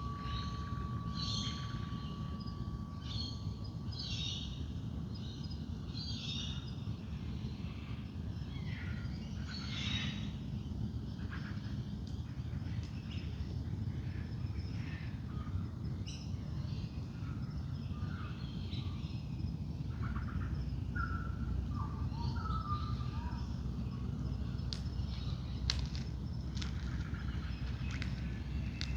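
Dawn chorus of wild birds, many short chirps and calls overlapping, over a steady low rumble. A single held ringing tone, the soft singing bowl, fades away about six seconds in.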